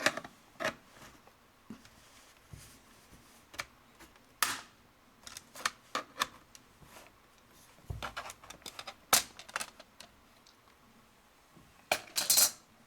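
Scattered plastic clicks, taps and rattles as a laptop's pried-off bottom access cover is lifted away and handled, with a quick cluster of clicks near the end.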